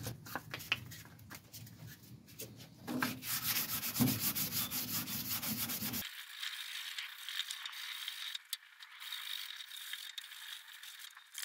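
600-grit abrasive paper rubbed back and forth by hand over a painted car bonnet, flatting back the old paint; the rasping strokes start about three seconds in, after a few light handling clicks.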